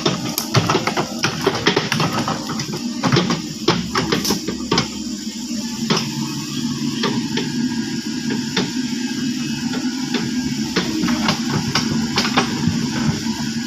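Caterpillar 307.5 excavator's diesel engine running steadily with a low hum, with frequent sharp clanks and knocks over the first few seconds that then thin out.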